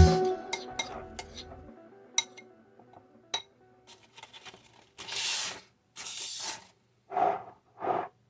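A utensil clinking lightly against a dish several times, then a few short scraping strokes, as when potato is worked in a bowl.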